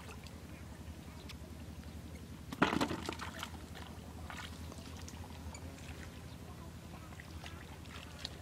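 Hands splashing and squelching in shallow muddy water while groping for fish, with one louder splash a little under three seconds in, over a steady low rumble.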